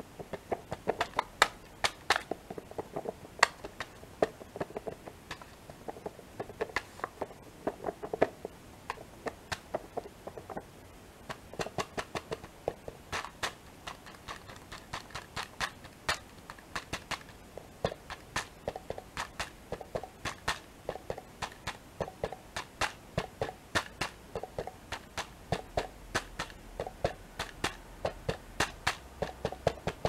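Fingertips tapping and rubbing on the sealed lid of a plastic yogurt cup: quick, irregular light taps, a few per second, some sharper than others.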